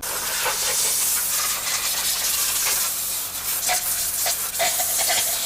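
A loud, steady rushing hiss with a few short clicks mixed in.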